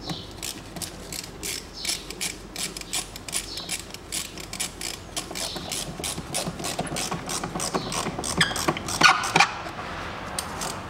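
Rapid clicking of a ratcheting hand tool working on the air intake hose clamp at the air filter housing, with a few louder clacks near the end.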